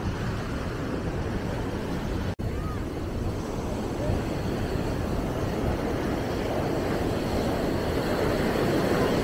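Surf washing onto a sandy beach, with wind rumbling on the microphone, as a steady noise; it drops out for an instant about two and a half seconds in.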